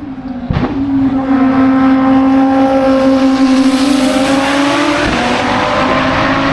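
Race car engine at high revs under full throttle, pulling away up a hill climb. It starts abruptly about half a second in, holds a steady high note that rises slightly, then breaks off near five seconds with a gear change and carries on at a lower pitch.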